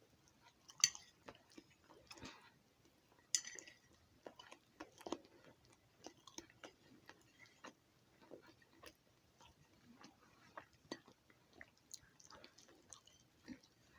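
A person chewing food close to the microphone, with irregular wet clicks and smacks, loudest about a second in and again about three and a half seconds in.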